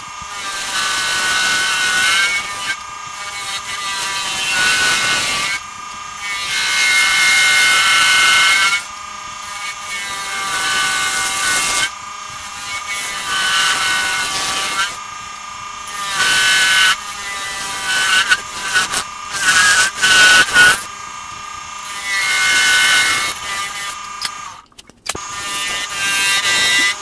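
Bowl gouge cutting a spinning canary wood and bloodwood blank on a wood lathe: a hissing, whining cut in repeated passes of about three seconds each, with short breaks between them as the tool is lifted and set again.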